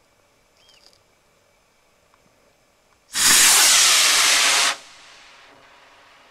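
Model rocket motor igniting about three seconds in and burning with a loud hiss for about a second and a half, then cutting off abruptly, leaving a faint fading hiss.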